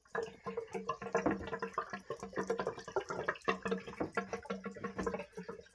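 Water running from a garden-hose spout into a sink basin, splashing and gurgling down the drain with a steady hollow tone. It cuts off abruptly near the end.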